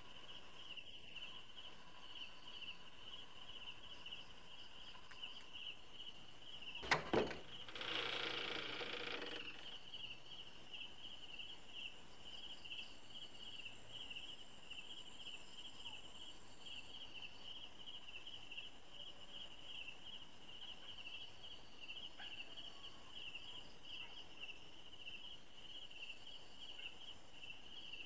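Crickets chirping in a steady, fast-pulsing trill throughout, a night-time ambience. About seven seconds in there are two sharp knocks in quick succession, followed by a short noisy burst lasting about a second and a half.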